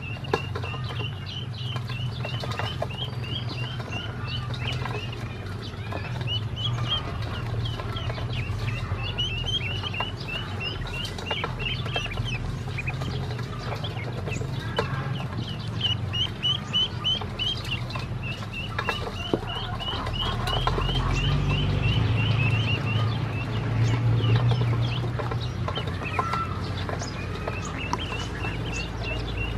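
Several ducklings peeping continuously in quick runs of short, high calls, with light taps and scuffles from their bills and feet in a stainless steel bowl. A steady low hum runs underneath and swells a little about two-thirds of the way through.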